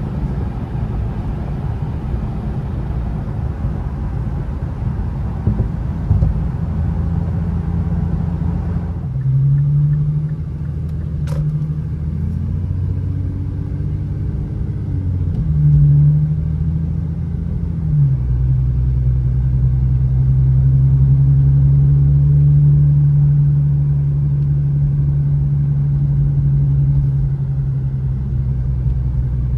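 Infiniti Q50 3.7's V6 engine and tyre noise on a snowy road while driving. About nine seconds in the road noise drops away, leaving a low engine hum that rises and falls briefly, then holds steady. A single sharp click comes about eleven seconds in.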